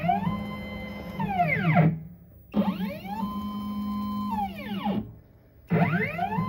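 CNC machine's stepper motors whining as the gantry makes one straight move after another: in each move the pitch climbs, holds steady, then falls as the axis slows to a stop. One move ends about two seconds in, a second runs through the middle, and a third starts near the end, with short pauses between them.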